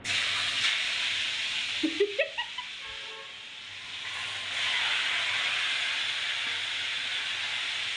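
Marinated chicken pieces sizzling in hot oil as they are tipped from a steel bowl into a metal kadai, a steady hiss. A few metal clinks come around two seconds in. The sizzle swells again about halfway through as more chicken goes into the pan.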